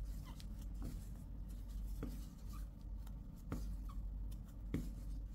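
A 5 mm crochet hook working flat polyester cord: soft rubbing and faint squeaks of the cord, with a light click about once a second as each double crochet stitch is made, over a low steady room hum.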